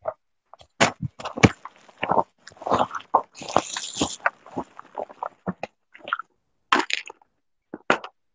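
Irregular clicks, knocks and rustling of objects being handled close to a call microphone, with a short hiss about three and a half seconds in.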